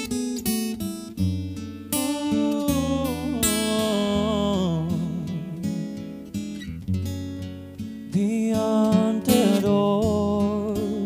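Live acoustic guitar music: chords struck and plucked over and over, with a held melody line that wavers with vibrato above them.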